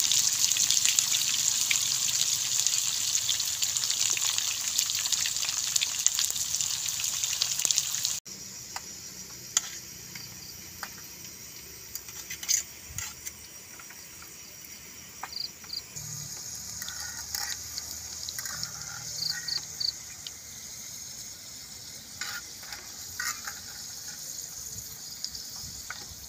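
Breadfruit slices deep-frying in hot oil, a loud steady sizzle. After about eight seconds the sizzle is suddenly much quieter, with scattered clicks of a metal fork against the pan and plate as fried pieces are lifted out.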